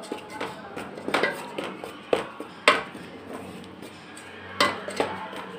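Metal spoon scraping and clinking against a steel pan while semolina and gram flour are stirred and dry-roasted on low heat. Irregular scrapes and knocks, with the sharpest clink about two and a half seconds in.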